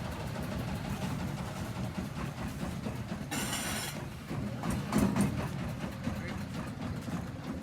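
Diesel-powered hydraulic concrete block machine running with a steady engine rumble and mechanical clatter, a short hiss a little over three seconds in and a knock about five seconds in.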